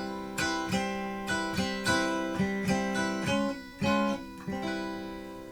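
Guitar chords strummed through a Sound City Master Lead 50 amplifier: about a dozen strums in a loose rhythm, the last chord left ringing near the end.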